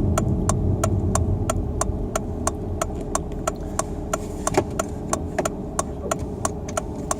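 Volvo V50 driving on freshly fitted snow tires, heard from inside the car: a steady low road rumble with a regular sharp clicking about five times a second that gradually slows.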